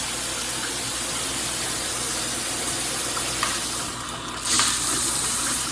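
Shower head spraying water in a steady hissing rush, growing louder about four and a half seconds in.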